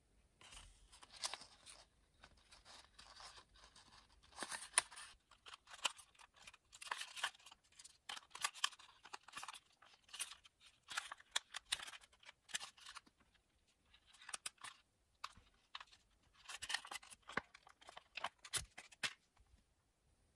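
White paper crinkling and rustling as it is wrapped around a black fountain pen cap and rubbed over it, polishing the cap: irregular scratchy swishes and crackles, with a short pause about two-thirds of the way through.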